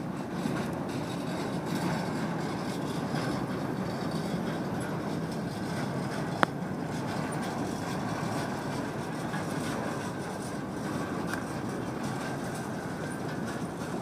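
Freight cars of a Florida East Coast Railway train rolling slowly past: a steady rumble of wheels on rail, with a single sharp click about six seconds in.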